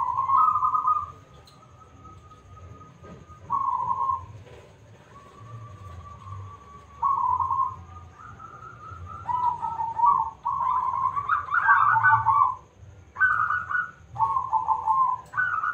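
A zebra dove (perkutut) cooing: short, trilled coos of about the same pitch. They come several seconds apart at first, then quicker and in closer phrases from about nine seconds in.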